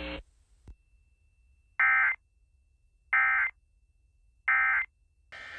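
Three short bursts of Emergency Alert System SAME digital data tones, about a second and a half apart: the end-of-message code that closes a NOAA Weather Radio warning broadcast.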